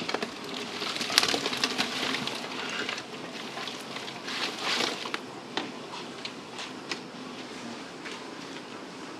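Flying fish poured from a plastic crate onto a tiled counter: a rush of wet fish sliding and slapping onto the tiles, with knocks from the crate. The pour dies down to a few scattered clicks after about five seconds.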